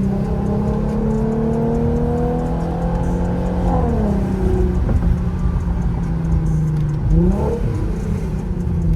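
Infiniti Q50's engine and exhaust under way. The revs climb steadily for about three and a half seconds, then drop off sharply. It runs on at a steady pitch, then makes a short rise and fall in revs about seven seconds in.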